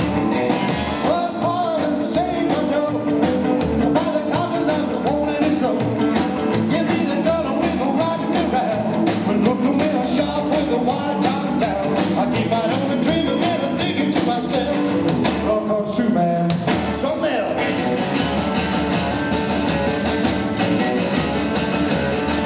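Rockabilly band playing live: electric guitar, double bass and drums in a fast rock 'n' roll number, with a brief break in the texture about two-thirds of the way through.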